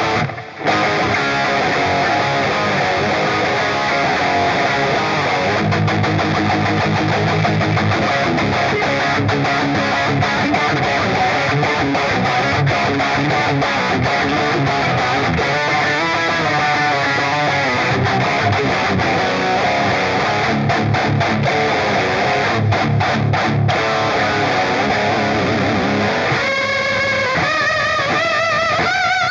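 Ibanez RG3250MZ electric guitar played through a multi-effects pedalboard on its bridge pickup: continuous fast riffs and lead lines, with heavier low riffing several seconds in and held lead notes with wide vibrato near the end.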